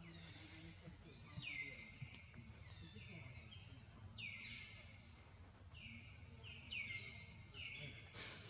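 Faint repeated bird calls, each a short high note sliding down and then levelling off, about seven in a row at uneven gaps. A brief burst of noise comes near the end.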